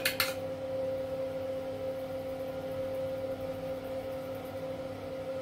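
Steady low hum at two pitches over a faint hiss, with a few sharp clicks right at the start.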